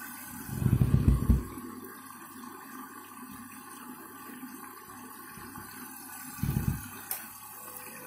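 Candy front-loading washing machine on a delicates wash, drum turning with shoes in soapy water: a steady wash noise with water sloshing, swelling louder twice, about half a second in and again around six and a half seconds. A brief click near the end.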